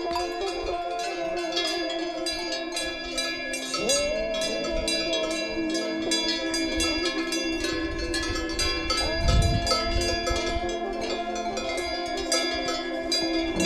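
Many overlapping bell-like ringing tones over a steady light clatter of short clicks, with slow rising swells about four and nine seconds in.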